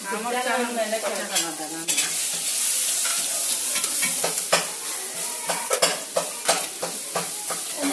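A metal spoon clinking and scraping against steel pots as food is ladled out, in many irregular sharp clicks over a steady hiss.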